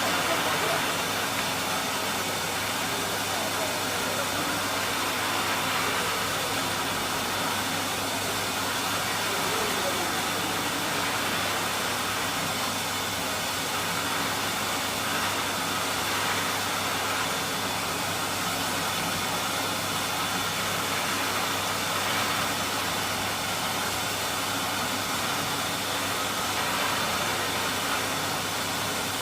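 Oil curtain frying machine running with a steady mechanical hum and hiss.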